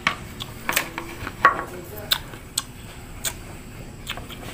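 Crisp, unripe Indian mango being chewed close to the microphone: a series of sharp crunches, roughly one every half second to second.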